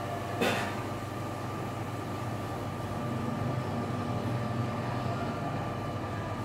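A steady mechanical hum with a faint steady whine, and one brief sharp knock about half a second in.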